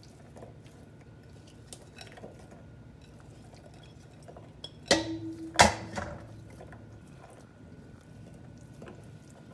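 Slices of carrot dropped and pressed onto raw ground-beef meatloaf in a ceramic baking dish, with faint soft taps. About halfway through come two sharp clinks a little under a second apart with a brief ring, as the emptied ceramic bowl is knocked and set down in a steel mixing bowl.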